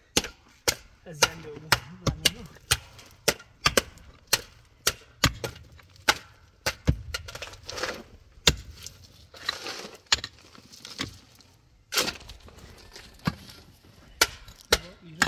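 Repeated chopping: a blade striking a chopping surface in sharp strokes, about two a second, with a short pause about eleven seconds in.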